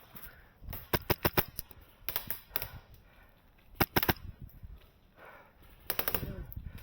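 Airsoft guns firing in short strings of rapid shots, about four bursts in quick succession.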